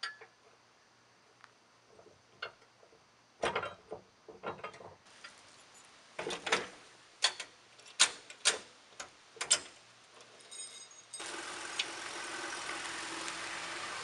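Metal clanks and clicks of a utility trailer's coupler and safety chains being hooked to a minivan's hitch, with a quick run of sharp chain clinks in the middle. About eleven seconds in, a steady outdoor hiss starts suddenly.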